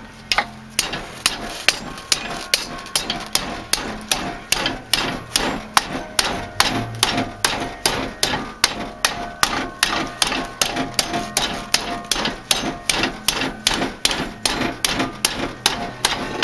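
Blacksmith's hammer striking steel sheet metal clamped in a vise over square tubing, folding it into a bend: steady blows about three a second, each with a short metallic ring.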